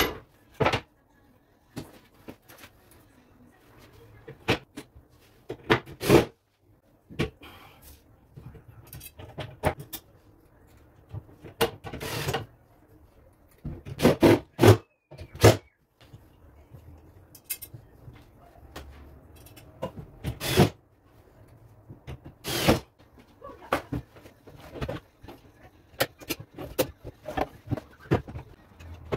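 Knocks and clatter of work inside a wooden vanity cabinet, with short bursts from a cordless drill-driver screwing the metal drawer runners in place. The loudest bursts come in a cluster about halfway through.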